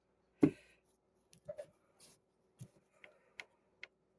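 Plastic Transformers action figure being handled: one knock about half a second in, then a scatter of light clicks from its parts.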